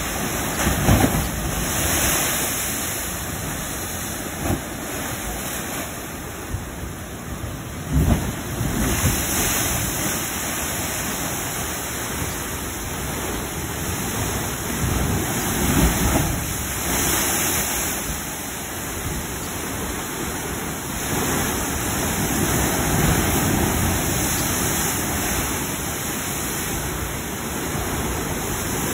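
Heavy surf breaking against the foot of a limestone cliff: a continuous rushing wash of churning water, swelling into louder surges with deep thuds roughly every seven or eight seconds as the bigger waves strike the rock.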